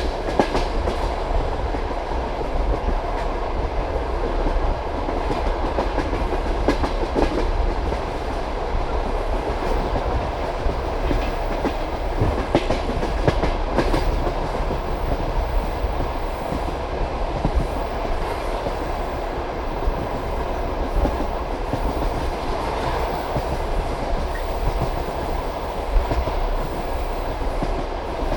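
Passenger railway carriage rolling along the track at speed, heard from the carriage window: a steady rumble and rush of wheels on rail, with the clack of the wheels over rail joints and a sharp knock now and then.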